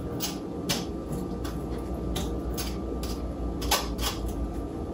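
Irregular light clicks and taps of a kitchen strainer being worked over the sink as thawed grated zucchini is pressed and shaken to drain off its liquid. A steady low hum runs underneath.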